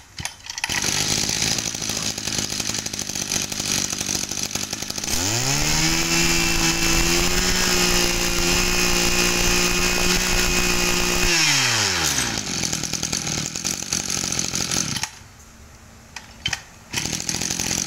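Mitsubishi TL26 26cc two-stroke brush cutter engine pull-started, catching almost at once and idling. About five seconds in it is revved up to full throttle with a rising whine and held there for about six seconds, then drops back to idle and is switched off near the end.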